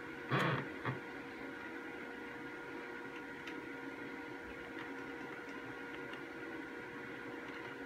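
Steady electrical hum and hiss of room tone. A short, louder rustling bump comes about half a second in, with a smaller one just after, and a few faint clicks follow later.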